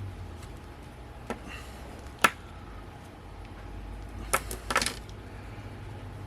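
Sharp clicks and taps of small parts and tools as a camera zoom lens is worked apart by hand: a single loud click a couple of seconds in, then a quick cluster of clicks near the end, over a faint low hum.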